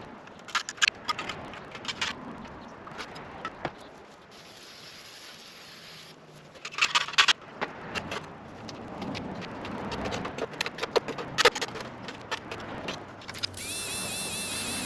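A hand scraper working caked road grime off a steel car chassis frame: irregular scrapes, clicks and knocks in bursts. A high warbling tone comes in near the end.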